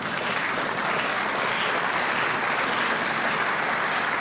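Large seated audience applauding steadily in a reverberant hall.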